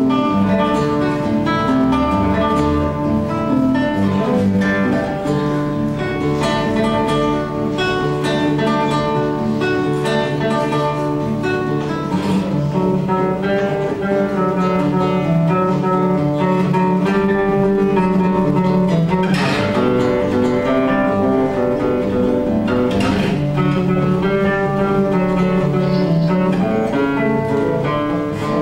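Instrumental music led by a plucked acoustic guitar playing a steady, continuous melody.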